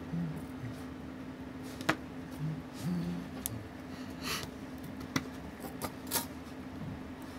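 A handful of small, sharp clicks and taps from steel tweezers and tiny watch-movement parts being handled and set down, spread out over several seconds. A steady low hum runs underneath.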